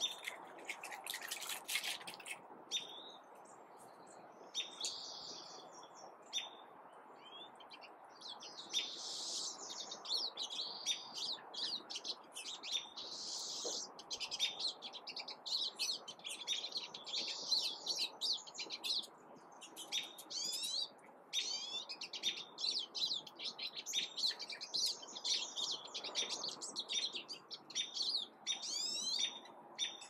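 Small songbirds chirping and singing in quick, overlapping phrases, sparse at first and near-continuous after the first quarter, over faint steady background noise.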